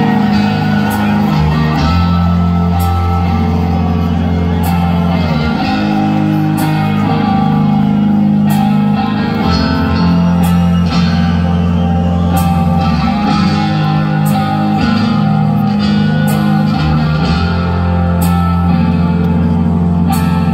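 A rock band playing live at concert volume: electric guitars, bass and drums with cymbal crashes, in a heavy phrase that repeats about every four seconds.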